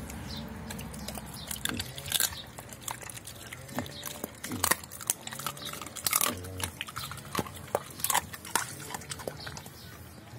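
Doberman pinscher eating from a steel bowl of fried bread, raw chicken and lettuce: irregular wet chewing and sharp crunches, with clicks of teeth against food and bowl.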